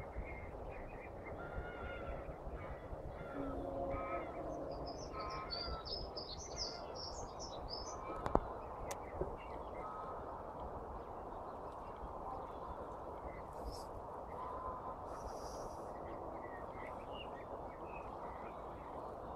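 Birds calling over steady outdoor background noise: short repeated calls in the first few seconds, then a burst of high twittering from about five to eight seconds in, with scattered fainter calls after. A single sharp click about eight seconds in.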